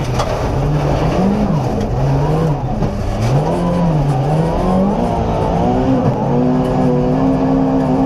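Volvo 240 rally car's engine at full attack, heard from inside the cabin, revving up and dropping back repeatedly as the driver works the throttle and gears, then holding at high revs near the end.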